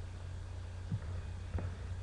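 Domestic cat purring, a steady low purr, with a few short soft bumps in the second half.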